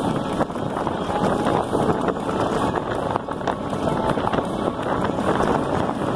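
Wind buffeting the bike-mounted microphone over the steady noise of an electric bike's tyres rolling on a loose gravel road.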